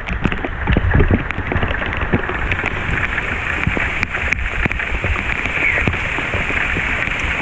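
Heavy rain pouring down in a thunderstorm: a dense, steady hiss with many sharp close drop hits throughout.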